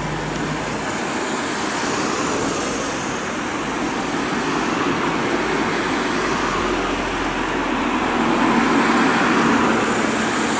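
Road traffic: cars and small vans driving past close by, a steady hiss of tyres and engines that swells as vehicles go past in the second half.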